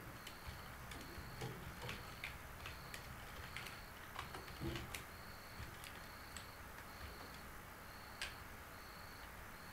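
Computer keyboard keystrokes clicking irregularly, faint, with a cricket chirping in the background in regular short high-pitched pulses a little under one a second.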